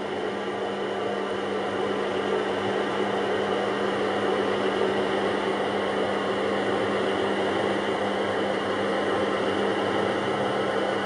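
O-scale German railbus model's DCC sound decoder playing diesel engine running sound through its small onboard loudspeaker: a steady drone with a constant low hum.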